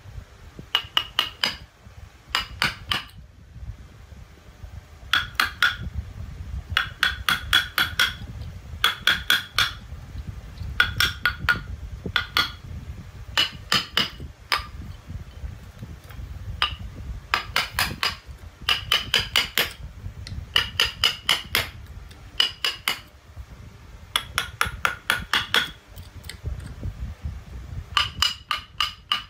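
Mallet driving a wood-carving chisel into a wooden statue, in quick bursts of four to six ringing taps with short pauses between bursts.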